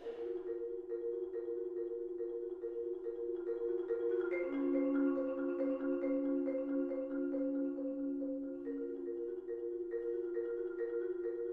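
Percussion quartet playing marimbas: a mid-range note struck over and over about three times a second above rolled, sustained lower notes, with higher notes joining about four seconds in.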